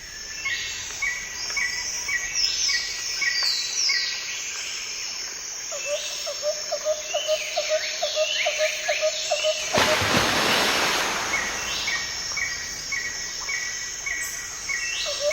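Several birds calling and singing together, one repeating a short chirp about twice a second while others overlap. About ten seconds in, a loud rushing noise sets in beneath them.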